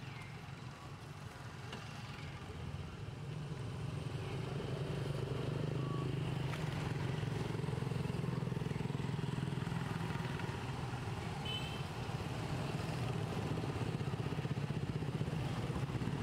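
An engine running steadily, growing louder about four seconds in and then holding even.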